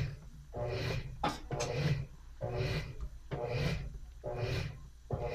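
Washing machine agitating a load, its agitator swishing back and forth in a steady rhythm of about one stroke a second, each stroke a short motor whir.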